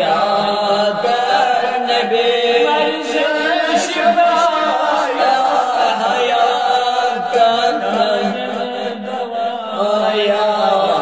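Darood recitation: voices chanting an Islamic devotional salutation on the Prophet in a steady, unbroken melodic line.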